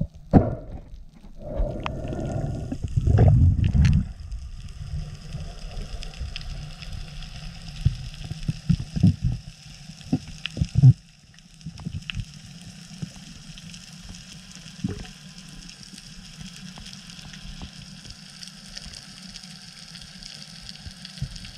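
Underwater sound picked up by a camera on a shallow scuba dive: a steady muffled low rumble of water with a faint crackling hiss above it. Loud water noise fills the first four seconds, and a cluster of short bubbling bursts and clicks comes around the middle.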